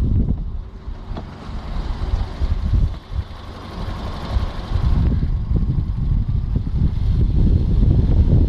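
Volkswagen 1.4 TSI (BMY) engine running, with heavy wind rumble on the microphone that is quieter for a few seconds and picks up again about five seconds in. The engine noise is what the uploader puts down to a loose timing chain.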